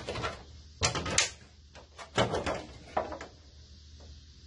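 Mower-deck discharge deflector being handled and fitted onto the lawn tractor's deck, knocking and scraping against the deck in several short clatters.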